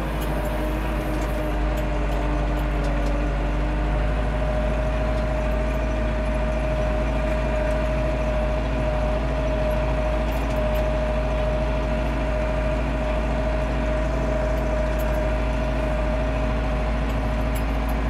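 Landini Blizzard 65's Perkins four-cylinder diesel running steadily under load, pulling a fixed-tine harrow, heard from inside the cab. A steady whine steps up in pitch about four seconds in.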